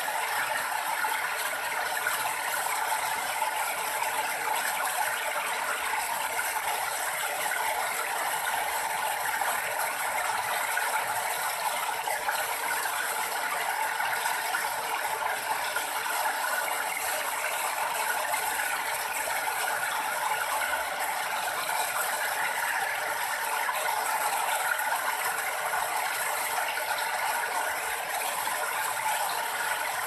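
Rocky stream rushing and splashing over boulders in small cascades: a steady, dense, crackling wash of water with no pauses.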